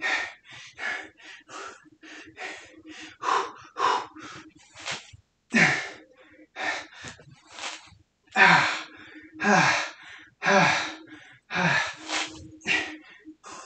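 A man breathing hard through a set of squats, with quick sharp gasping breaths in and out. The loudest breaths come in the second half, about one a second.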